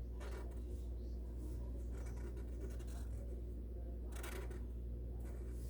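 Faint scratching strokes of drawing on paper, a few short strokes, with the clearest about four seconds in, over a steady low hum.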